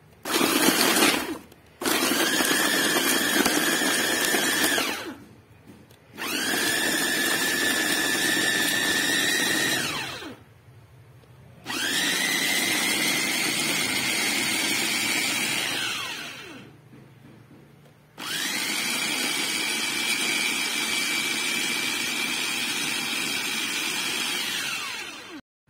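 Mitojiba electric food chopper run in five pulses, switched on and off by pressing the lid, grinding chilies, shallots, garlic and spices into a paste. Each pulse is a few seconds of motor whine over the whirr of the blades through the food, rising as it spins up and falling as it stops; the first pulse is short, the last is the longest.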